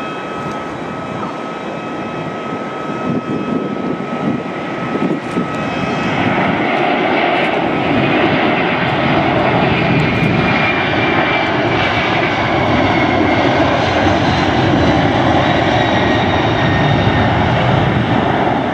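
Boeing 767-300ER twin jet engines: a steady high whine at low power, then rising to take-off thrust about six seconds in, and a loud, steady roar through the take-off roll up to rotation.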